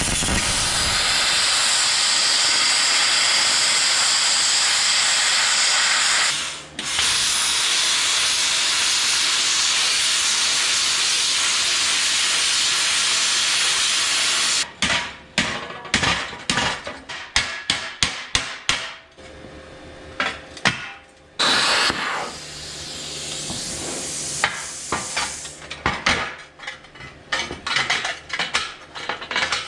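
Plasma cutter hissing through steel in two long cuts, one of about six seconds and one of about eight, with a brief break between them. Then comes a run of sharp metal clanks and taps, broken by a shorter hiss a little past the middle.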